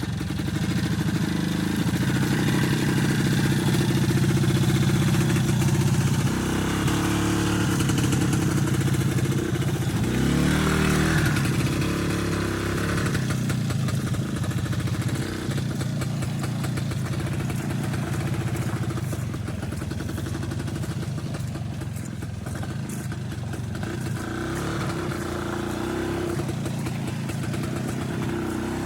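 A vehicle engine runs steadily under load, its revs rising and falling a couple of times along the way.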